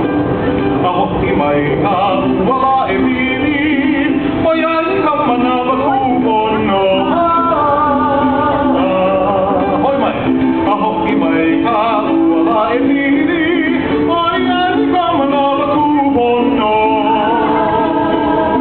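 Hawaiian hula song played live: a singer with a wavering vibrato over steady instrumental accompaniment.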